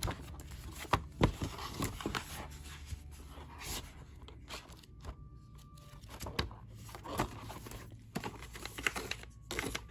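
Paper and packaging being handled: irregular rustling and crinkling with scattered soft knocks as a workbook and set contents are searched through.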